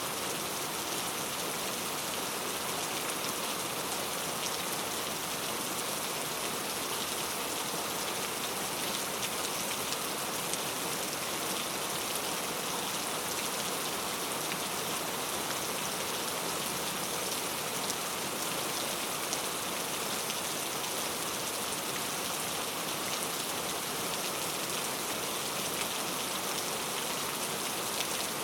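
Steady rainfall, an even hiss of many drops pattering on surfaces.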